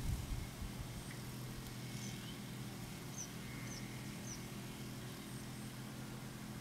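A faint steady low drone, with a few short, high chirps from a small bird about three to four and a half seconds in.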